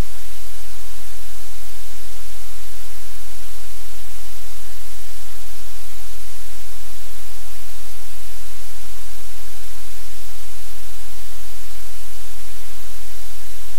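Loud, steady static hiss, like white noise, with a low hum beneath it and no other sound standing out.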